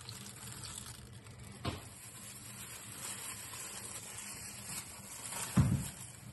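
Water trickling from a glass measuring jug into a plastic bag of pork belly, then plastic bag rustling as it is twisted and knotted, with a short knock about a second and a half in and a louder thump near the end.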